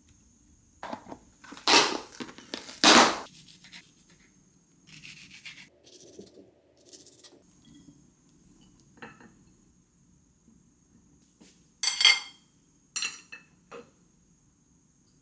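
Kitchen handling noises: two loud, sharp scrapes or knocks early on, softer rubbing in between, then two quick bursts of ringing clinks from dishes and utensils near the end.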